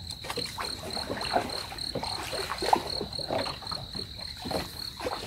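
An insect chirping in a steady high pulse, about five times a second, over irregular short knocks and rustles close by.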